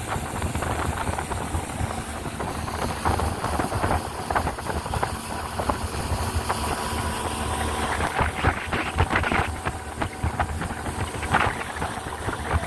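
Engine of a small open riverboat running steadily under way, with wind and water rushing past the hull. Irregular sharp knocks come through, loudest about eight to nine seconds in and again near the end, as the hull hits the chop.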